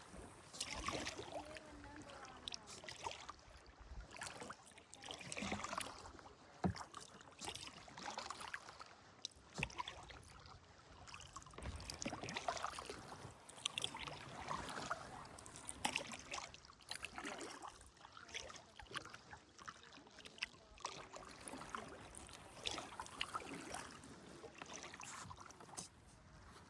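Kayak paddle strokes: the blades dipping into the water with a repeated swishing splash, one every second or so.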